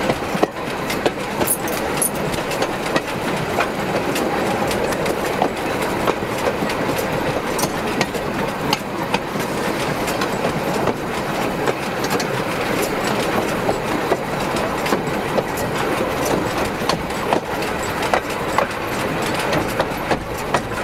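Steel wheels of a narrow-gauge railway wagon rolling along the track, heard close from under the wagon: a steady rumble of wheel on rail with frequent irregular clicks and knocks from the wheels, rail and running gear.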